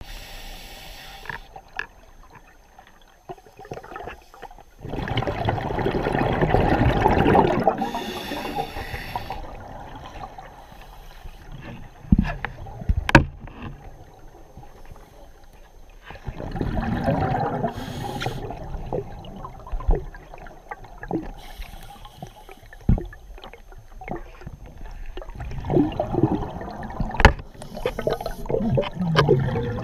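A scuba diver breathes through a regulator underwater. Three long rushes of exhaled bubbles come about ten seconds apart, each with a brief hiss of inhalation near its end, and a few sharp knocks fall in between.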